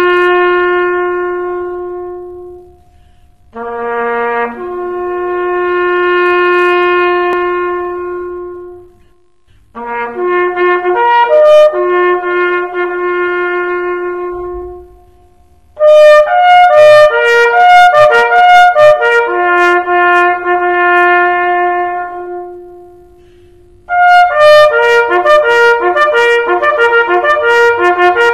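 Solo bugle playing a military bugle call in phrases. It opens with long held notes separated by pauses, then moves to quicker runs of notes from about sixteen seconds in.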